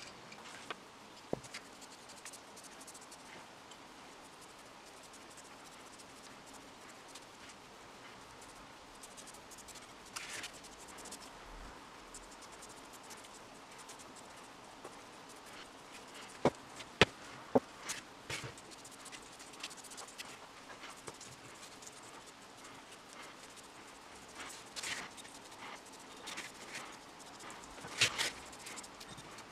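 Quiet workbench handling: a paintbrush scratching lightly over small metal drill parts, with a few sharp clicks and taps as the parts are handled on cardboard. The loudest are three clicks in quick succession about halfway through, and another near the end.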